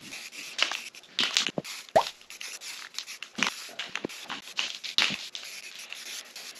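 Aerosol spray paint can hissing in short, irregular bursts as a coat of blue paint goes on, mixed with scuffing steps on a plastic drop cloth and cardboard. A brief squeak about two seconds in.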